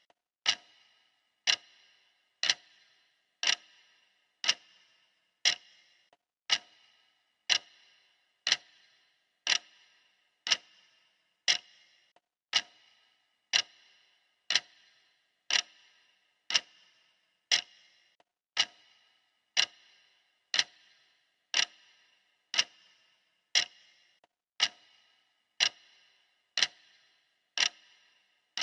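Steady clock-style ticking of a countdown timer, one sharp tick each second with a brief ring after each. Each tick marks one second of the countdown.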